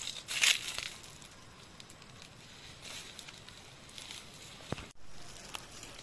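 Dry leaves and twigs rustling and crackling as someone pushes through dry scrub, loudest about half a second in. A single sharp knock sounds near the end.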